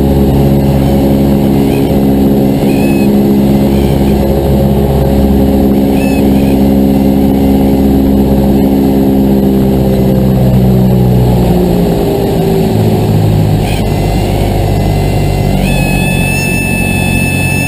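Cessna 172's four-cylinder piston engine and propeller running loudly, heard from inside the cabin. The engine's pitch drops about twelve seconds in, and a thin steady high tone joins near the end.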